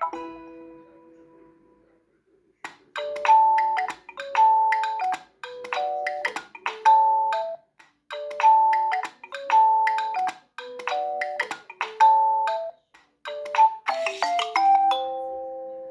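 Nokia G21 stock ringtones: the previous tone fades out, then a new bell-like melodic ringtone plays a short phrase of a few notes about ten times over, ending on a held note that fades away.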